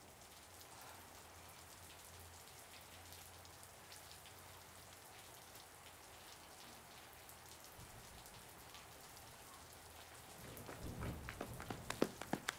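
Light rain with water dripping off a roof edge, a faint steady patter of drops. Near the end the drips turn louder and sharper, landing close by in quick succession.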